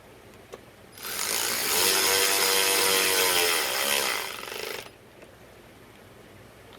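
A cordless drill-driver runs for about four seconds, driving a bolt into the fresh plastic threads of a new trim bezel. Its whine holds steady, then drops in pitch as it slows and stops.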